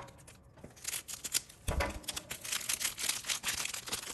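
Foil Pokémon 151 booster pack wrappers crinkling and crackling as they are torn open by hand. A dull bump comes a little under two seconds in.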